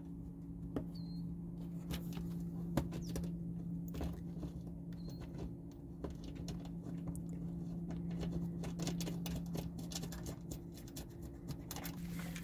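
Light, irregular clicks and scratching of bolts being threaded by hand into a car's plastic splash shield, denser in the second half, over a steady low hum.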